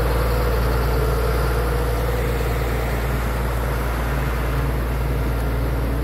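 Water tanker truck's engine running steadily at idle while the truck draws water from the river into its tank.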